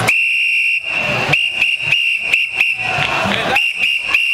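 A whistle blown with one long blast, then a string of short, uneven blasts, with a brief break about three seconds in.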